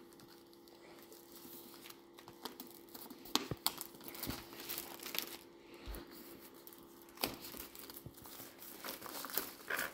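Thin plastic shrink-wrap being torn and peeled off a laptop box: faint, irregular crinkling and tearing with a few sharp crackles.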